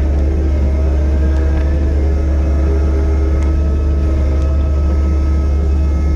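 Kubota SVL90-2 compact track loader's diesel engine running steadily under load, a constant low rumble with a steady hum over it.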